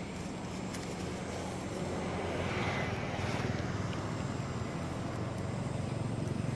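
A low, steady engine rumble that swells and fades about two to four seconds in.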